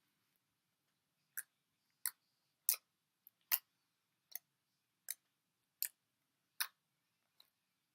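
Homemade borax slime worked by hand, giving a series of sharp popping clicks, about ten of them, roughly one every three-quarters of a second.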